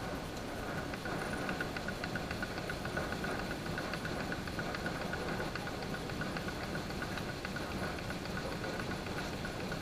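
Homemade fiddlehead cleaning machine running with its blower fan on: a steady mechanical hum and rumble with a fast, even rattle.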